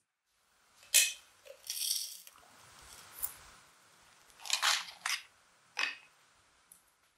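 Glass and cardboard handling on a glass table: a sharp clink about a second in, then flaky sea salt poured from its cardboard box into a glass jar with a soft grainy hiss. Several more knocks and rustles follow as the box and a wooden pepper mill are moved.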